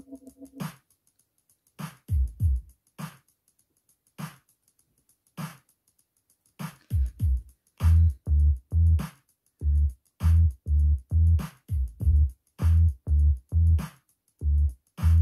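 Electronic backing track. A held synthesizer chord stops just under a second in, followed by a few sparse drum-machine hits with near silence between. From about seven seconds in it settles into a steady beat of deep kick drums and sharp clicks, about two kicks a second.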